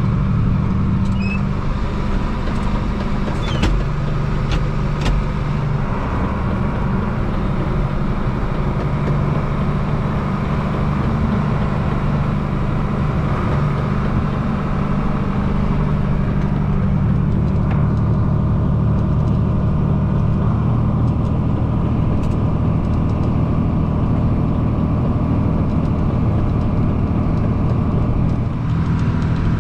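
Tractor engine running steadily while pulling a manure spreader, heard from inside the cab, with a few light clicks about four seconds in.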